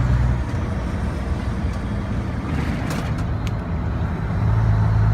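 Renault Magnum 440's 12-litre Mack diesel engine pulling with a steady note. About half a second in, the note drops away as the engine goes off load for a few seconds, with a few sharp clicks. Near the end the steady pull comes back.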